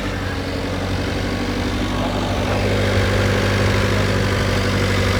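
Renault Duster engine idling steadily after a decarbonising (carbon-cleaning) service, which the garage says has reduced its vibration and knock.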